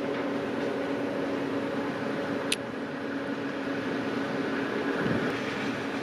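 Farm machinery engine running with a steady drone, with a single short sharp tick about two and a half seconds in.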